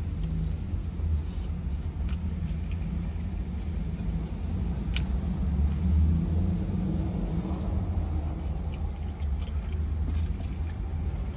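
Steady low rumble of a car idling, heard from inside the cabin, with a few faint clicks from eating.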